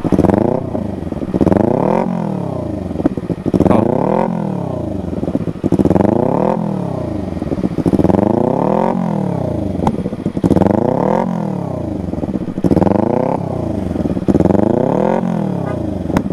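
Motorcycle engine breathing through a pure-carbon DX aftermarket exhaust, revved by blips of the throttle about every two seconds, each rev rising and then falling back toward idle.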